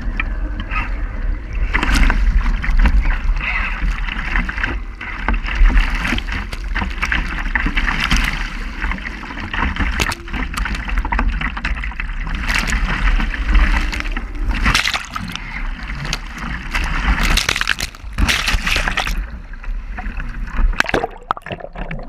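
Wind buffeting a microphone mounted on a radio-controlled model trimaran, over the rush and hiss of water and spray streaming past the hull as it sails fast in strong gusts, with frequent sharp splashes. The water noise thins out for the last couple of seconds.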